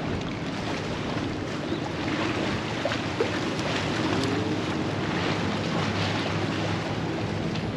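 Steady wind rushing on the microphone over choppy sea water washing around the pier.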